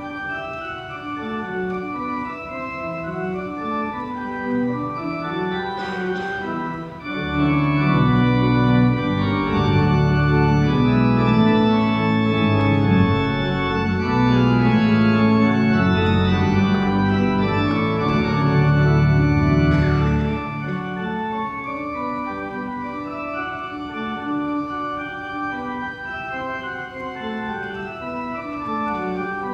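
Church organ playing sustained chords at the three-manual console. It swells louder with deep pedal bass notes from about seven seconds in, then drops back to a softer registration about twenty seconds in.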